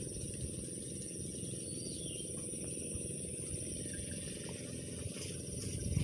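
Steady high-pitched insect chorus, crickets or cicadas trilling without a break, over a continuous low rumble.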